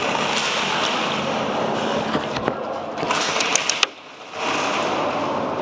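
Airsoft gunfire: a quick string of sharp shots about three seconds in, over a steady rushing noise.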